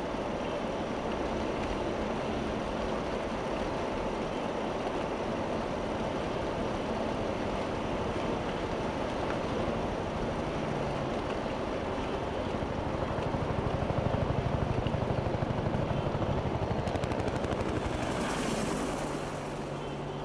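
A Jeep driving on a wet, snowy road, heard from inside the cab: a steady rumble of engine and tyre noise. In the second half it grows louder with a fast rhythmic pulsing, and a hiss rises briefly near the end.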